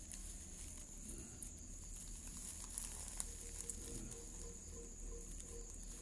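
Night insects, crickets, chirring steadily in a high, even drone, with a few soft clicks and rustles of nest grass. About three seconds in, a low, evenly pulsed call of roughly four notes a second joins.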